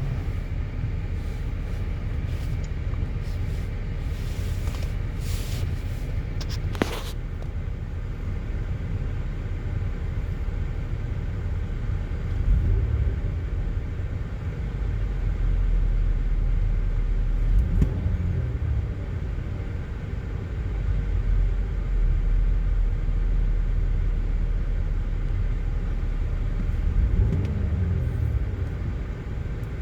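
GMC Acadia's 3.6-litre V6 running at idle with a steady low rumble while misfiring, the misfire coming from cylinder 5 with a failed ignition coil and spark plug. A sharp click about seven seconds in.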